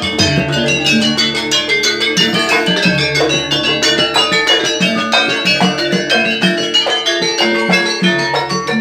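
Live jaranan gamelan ensemble playing: fast, driving kendang drumming with ringing pitched metal percussion notes over it, in a steady rhythm.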